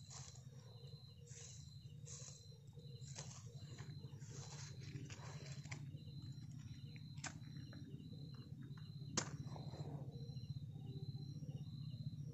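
Dry leaves and paper kindling rustling as they are handled, then two sharp scrapes of a match struck on its box, the second about three-quarters of the way in and followed by a brief flare. Night insects trill steadily, with a rhythmic chirp on top.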